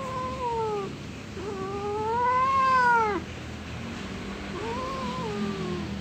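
Domestic cat giving three drawn-out meows. The first falls in pitch, the second, about a second and a half in, is the longest and loudest and rises then falls, and the third comes near the end.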